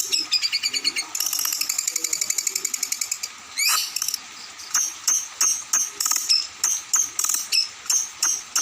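Songbird singing a high, rapid chirping song. It opens with a fast trill of notes lasting about two seconds, gives a quick rising sweep, then repeats sharp chirps about three to four a second.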